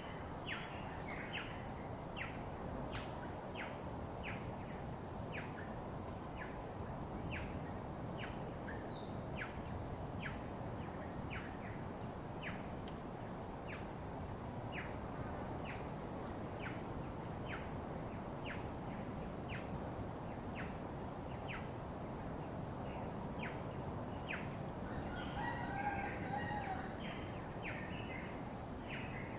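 Outdoor bird chorus recorded in American Samoa: a short, high, downward chirp repeats about once a second over a steady hiss and a thin, steady high whine. A rooster crows, louder than the rest, about 25 seconds in.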